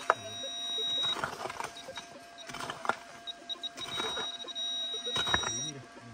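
A metal detector's high, steady tone sounds for about the first second, comes back as a few short beeps a little past the middle, then holds again for over a second and a half near the end, signalling metal in the wet soil being dug. A few sharp knocks and scrapes from hands digging in the mud.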